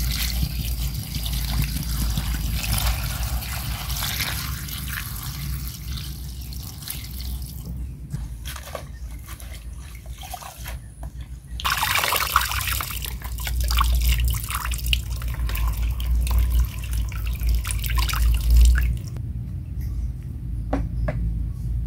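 Water poured in a trickle over spinach leaves in a plastic basin, then splashing and dripping as the leaves are washed by hand and lifted out to drain. The splashing is loudest a little past the middle.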